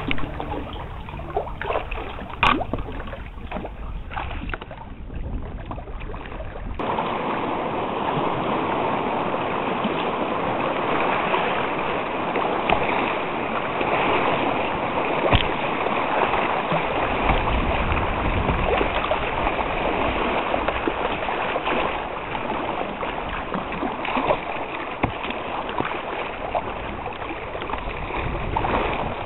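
River water rushing and splashing around a kayak in choppy current. A quieter stretch with a few sharp splashes gives way, about seven seconds in, to louder, steady rushing water.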